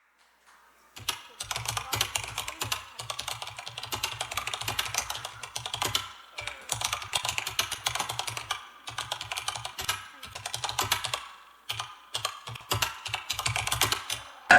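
Rapid clicking of typing on a keyboard, in runs of a few seconds with short pauses between.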